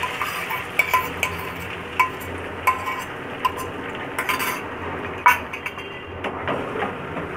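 Irregular metal clinks and scrapes of a steel bowl and a flat steel spatula knocking against an aluminium frying pan as beaten egg is poured in and stirred.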